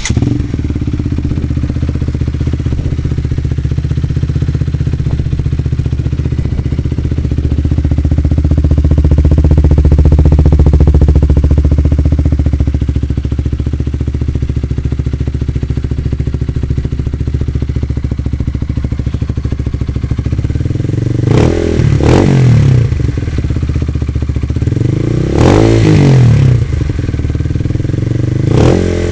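Honda CBR125's single-cylinder four-stroke engine, breathing through a Yoshimura full exhaust with the dB killer removed, idling steadily. Over the last several seconds the throttle is blipped a few times in short, sharp revs that fall straight back to idle.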